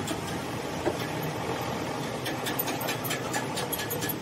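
A steady mechanical hum, with a quick run of light clicks and knocks in the second half as lead-acid battery plate groups are set into the plastic cells of a battery case.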